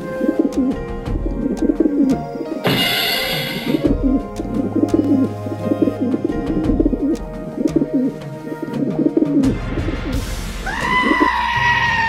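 Cartoon bird sound effects: many short, wavering cooing calls like a pigeon's, over background music, with a harsh burst about three seconds in and a longer, higher pitched call near the end.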